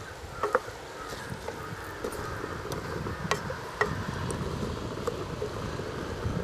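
Wooden spatula stirring grated coconut and chopped ivy gourd in a non-stick kadai: soft scraping with a few sharp knocks of wood on the pan, a pair about half a second in and two more past the three-second mark.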